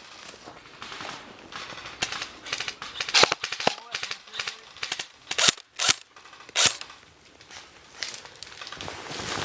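Airsoft guns firing: scattered single shots and short bursts of sharp cracks, loudest and closest together in the middle.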